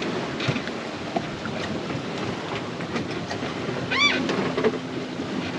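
Sailing yacht under way at sea: a steady rush of water and wind with small creaks and knocks. About four seconds in there is a short high squeak, and a low steady hum runs through the last second and a half.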